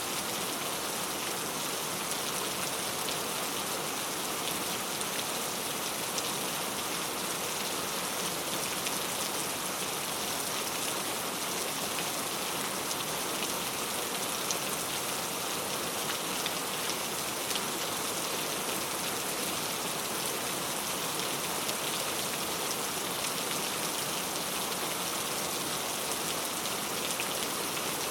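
Heavy rain falling in a steady, even hiss, with the small ticks of individual drops scattered through it.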